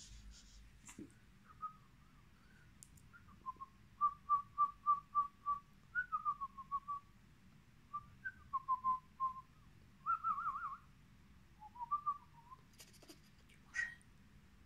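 A person whistling a string of short, high notes: a quick run of even notes, a few falling glides and a warbling trill. A few soft clicks are heard near the start and near the end.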